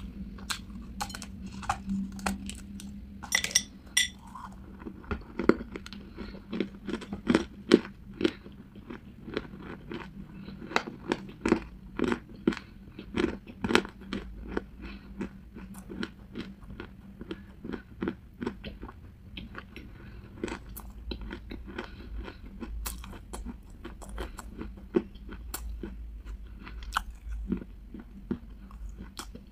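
Chewing and crunching chunks of hard clay with a blackened crust: a long run of sharp, crisp crunches, densest in the middle and sparser near the end, with one loud bite about three and a half seconds in.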